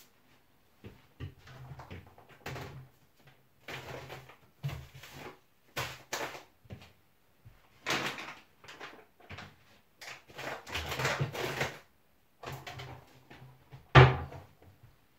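Kitchen handling noises: a run of short knocks, clatters and rustles as cupboards and a packet are handled, with one sharp knock near the end, the loudest sound.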